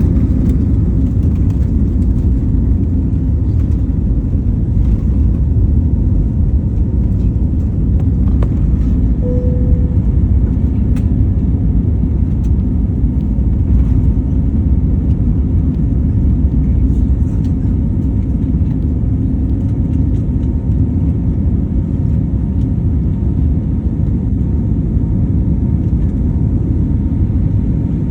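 Airplane engine and airflow noise during takeoff, a steady low rumble. A short tone sounds about nine seconds in.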